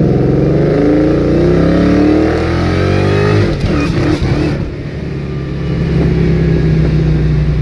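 2003 Ford SVT Mustang Cobra's supercharged 4.6-litre V8 accelerating hard, its pitch rising for about three and a half seconds before it breaks off and drops, then running steady at a lower pitch. The engine is worn out, running with a dead cylinder, and struggles under the hard throttle.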